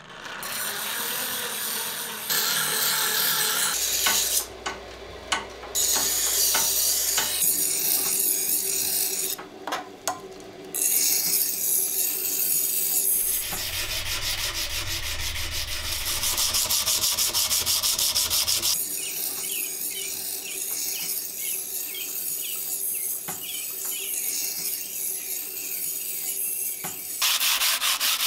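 Hand abrasive work on an antique knife's metal parts: sandpaper and file strokes rubbing on steel, in a string of short takes that change every few seconds, with quick, even strokes near the end.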